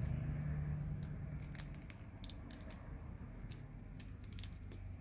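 Scattered small clicks and crinkles of adhesive tape being handled and pressed on, over a low steady hum that eases after about two seconds.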